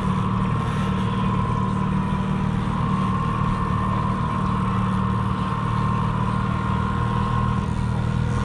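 Boat motor running steadily at low trolling speed, an even hum with a constant higher whine.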